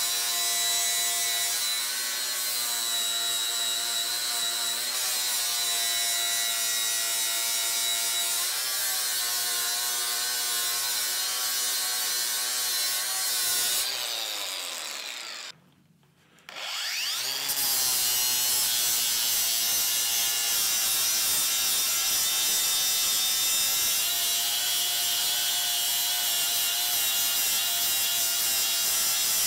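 Metabo cordless angle grinder running a flap disc against the steel edge of an anvil, a steady high whine with grinding rub. About halfway through it winds down to silence, then spins back up a couple of seconds later and grinds on.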